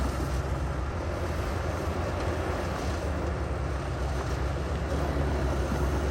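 Heavy earthmoving machinery's diesel engine running steadily under load, a low rumble with broad mechanical noise over it. A single sharp knock right at the start.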